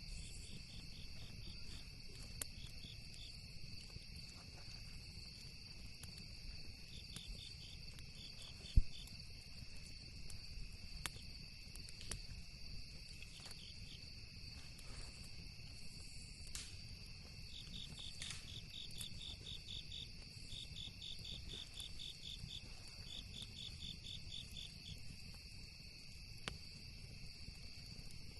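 Insects chirping steadily in overlapping high trills, with scattered sharp pops from a crackling campfire, one much louder pop about nine seconds in, over a faint low rumble.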